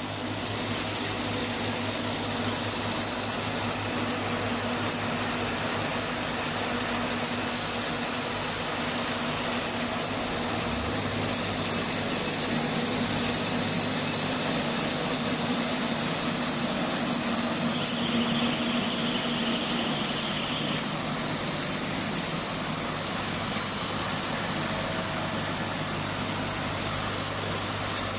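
Diesel-powered silage baler and wrapper machine running: a steady mechanical din with a constant high whine, with an extra hissing layer for a few seconds about eighteen seconds in.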